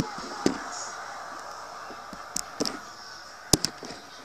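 A few sharp clicks and pops, two close together near the end, over a faint steady hiss.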